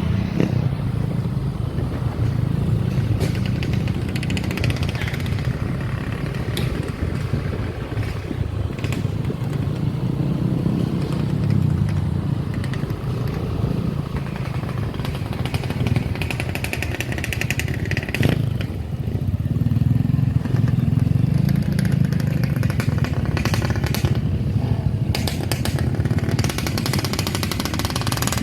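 Motorcycle engine running on the move, its low note swelling and easing several times, with a few sharp clicks and rattles.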